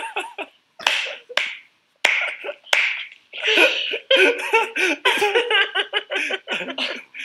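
A woman and a man laughing hard. It starts as breathy gasps and builds into a run of pitched, pulsing laughter from about three seconds in.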